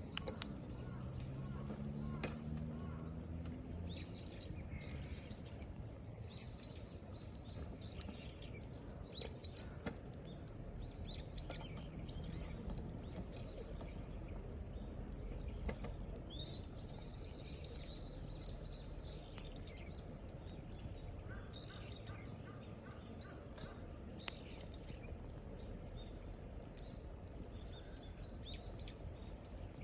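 Wood campfire burning, with scattered sharp crackles and pops of firewood splitting; the loudest pop comes about 24 seconds in. Birds chirp in the background.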